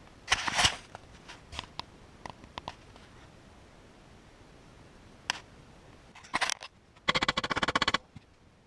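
Metal workshop handling noise: a sharp clatter just after the start, then scattered light clicks and knocks. Near the end comes a fast rattle of about a dozen ticks in under a second.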